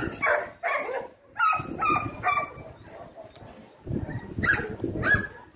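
Dog yipping and whining: a quick string of short high-pitched calls in the first two and a half seconds, then two more near the end.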